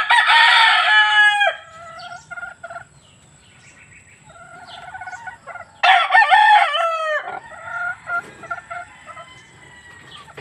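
Gamecock roosters crowing: two loud crows, one at the start and one about six seconds in, each about a second and a half long and dropping at the end, with softer calls in between.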